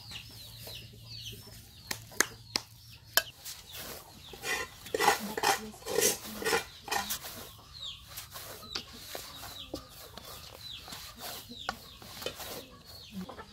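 Chickens clucking, with louder calls about five to seven seconds in, over scattered sharp clicks and knocks from a spoon and hands working food in metal cookware.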